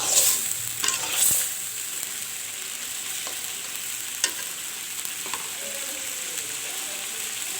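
Chicken and potatoes sizzling steadily in oil and spice paste in a pan while being sautéed, with a few scraping stirring strokes in the first second and a half and a single sharp click about four seconds in.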